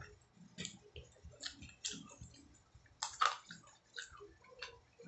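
Close-up mouth sounds of a person eating pork chop and rice: irregular smacks and clicks of lips and tongue while chewing, about two a second.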